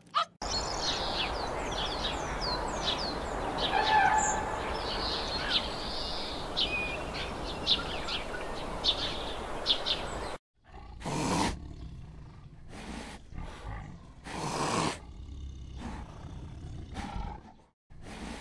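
Small birds chirping, with many quick falling calls over a steady rushing background. After a break about ten seconds in, a large animal gives a series of short, breathy calls.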